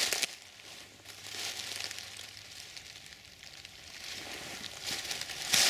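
Footsteps crunching and rustling through dry oak leaf litter, in uneven bursts, the loudest step just before the end.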